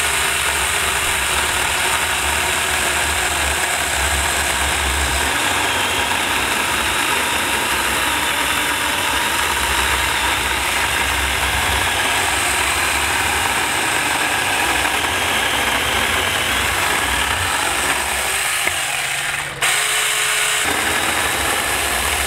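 Saker 4-inch 20-volt cordless mini electric chainsaw cutting thin rounds off an oak log, its chain running steadily through the wood, with a brief break near the end.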